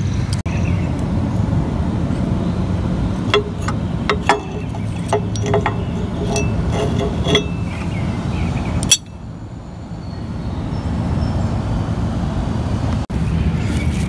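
A run of light metallic clinks and taps from metal tools and mower parts being handled, clustered between about three and seven and a half seconds in, over a steady low background rumble.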